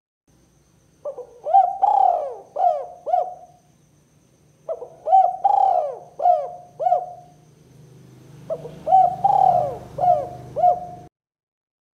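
Spotted dove (tekukur) cooing: three phrases of about five quick coo notes each, separated by short pauses, with a faint low hum beneath. This is the kind of call played to lure other doves.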